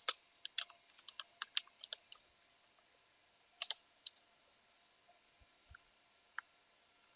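Computer keyboard keys clicking, a quick run of about a dozen keystrokes in the first two seconds, a few more about three and a half seconds in, then only scattered faint taps.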